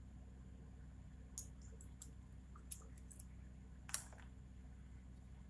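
Light clicks and taps of lab glassware being handled: about seven short, sharp clicks, the sharpest about a second and a half in and again near three seconds, over a faint low hum.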